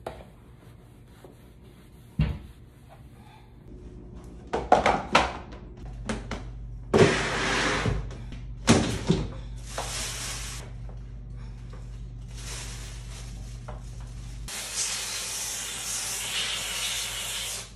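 Handheld steam cleaner hissing as it blasts steam in several bursts, the longest near the end, over a low steady hum. Before and between the bursts, plastic storage bins knock and clatter as they are moved.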